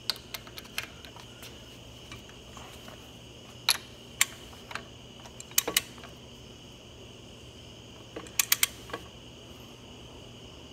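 Scattered sharp metallic clicks, in small clusters of two to four, from a socket wrench working on the brake housing cap screws as they are tightened.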